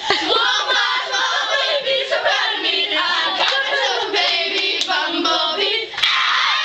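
A group of girls singing or chanting together in unison, clapping their hands along.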